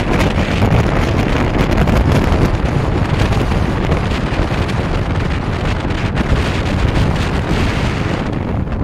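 Wind rushing over the microphone of a phone filming from a moving car, a loud, steady roar of air with the car's road noise beneath it.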